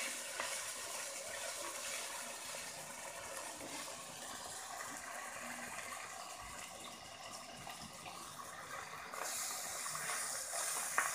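Catfish pieces frying in hot oil in a pan: a steady sizzling hiss with fine crackle, louder from about nine seconds in.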